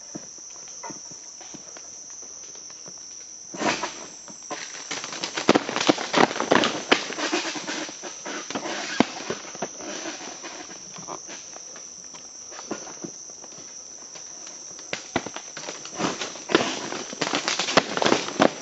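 Steady high-pitched insect drone, broken by three spells of sharp crackling and snapping: a short one about four seconds in, a longer one from about five to seven and a half seconds, and another near the end. The crackling is the pole-mounted palm bunch cutter being pulled to sever the stalk of a patauá bunch.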